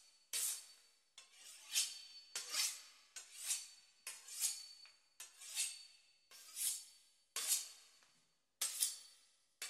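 A large knife sawing through the crisp pastry crust of a beef Wellington. It makes rasping back-and-forth strokes, about one a second.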